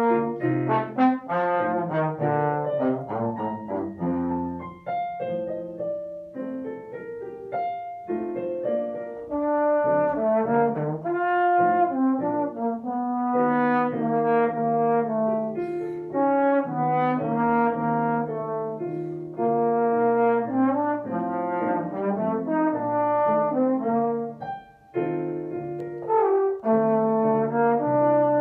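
Tenor trombone playing a solo melody of sustained, changing notes, with piano accompaniment and one brief pause near the end.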